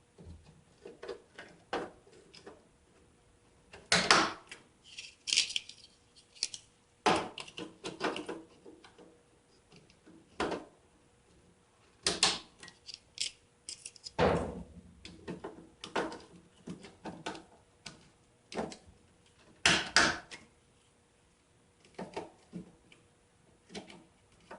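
Irregular plastic clicks and knocks as Corsair Vengeance RAM sticks are handled and pressed into the motherboard's memory slots, their latches snapping shut, with sharper knocks about 4, 7, 12, 14 and 20 seconds in.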